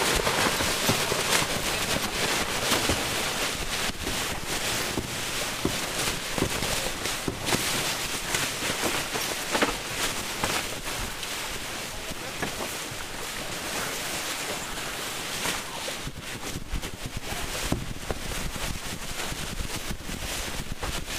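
Wind noise buffeting the microphone over water rushing past the hull of a C&C 39 sailboat under way, with irregular knocks and buffets throughout.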